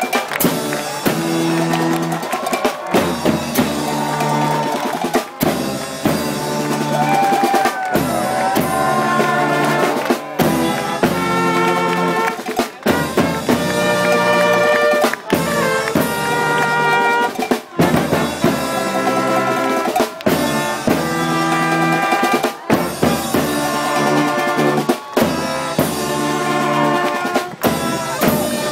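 Brass marching band playing live at close range: sousaphone, trumpets and horns over a steady bass drum and snare beat, in phrases broken by short pauses every couple of seconds.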